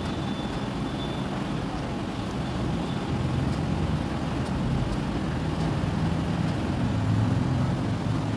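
Steady low rumble of running boiler-house machinery in a power plant, with a few faint clicks.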